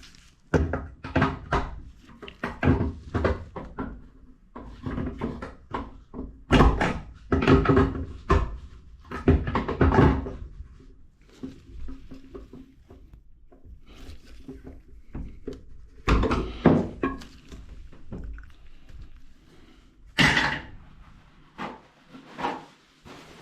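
Irregular knocks, clunks and scrapes of plumbing parts and tools being handled during a sink repair, heaviest in a cluster several seconds in and again in single hits later on.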